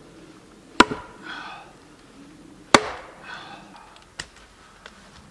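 Axe chopping into an upright log on a chopping block: two sharp blows about two seconds apart, then two lighter knocks near the end.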